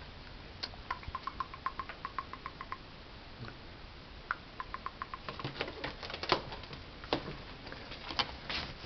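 A cat's claws ticking and tapping on a hard surface: two runs of light, even ticks about five a second, then a few sharper, louder taps and knocks.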